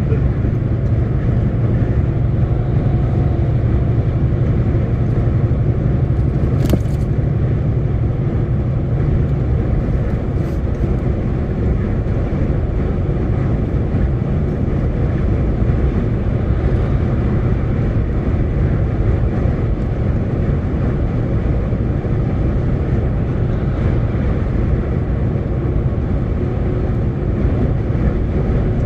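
Heavy truck driving, heard from inside the cab: steady diesel engine drone and road noise, with a single sharp click about seven seconds in.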